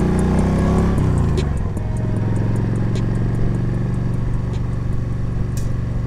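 Yamaha V Star 1300 V-twin engine under way, its pitch dropping over the first second and a half as the revs fall, then running steadily at cruise. Music from the fairing speakers plays faintly underneath, with a light regular ticking beat.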